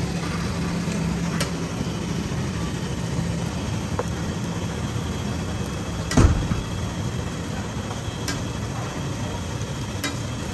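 Steady low engine-like hum with occasional light clicks of a metal spatula on an iron griddle, and one loud knock about six seconds in.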